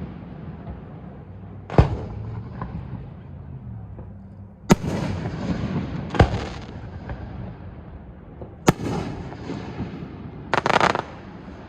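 Fireworks bursting overhead: four sharp bangs a second or more apart, each with a short ringing tail, and a brief noisy burst near the end.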